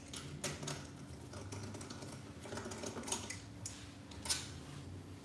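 Faint, irregular light metallic clicks and taps: a socket wrench and loosened steel bolts being handled on a motorcycle engine's casing.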